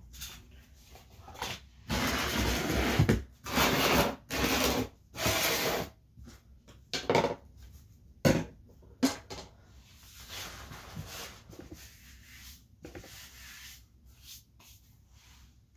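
Rubbing and scraping noises close to the microphone: three scrubbing bursts of about a second each, then a few sharp knocks and quieter rustling.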